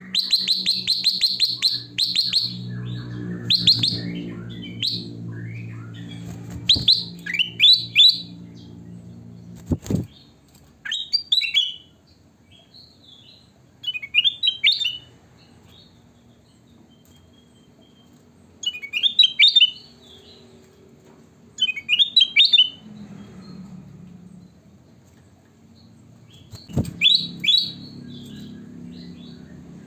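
Kutilang emas bulbul singing: bursts of quick, bright chirping phrases repeated every few seconds. A low hum runs through the first seven seconds, and two sharp knocks come at about ten seconds and near the end.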